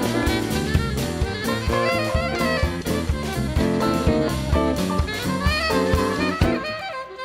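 Jazz combo playing instrumentally, a saxophone carrying the lead melody over drum kit, electric guitar, bass and keyboard; the band thins out for a moment at the very end.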